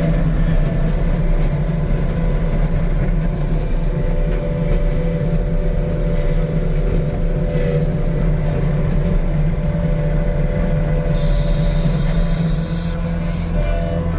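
2015 New Holland L228 skid steer's diesel engine running steadily, with a hiss for about two seconds near the end.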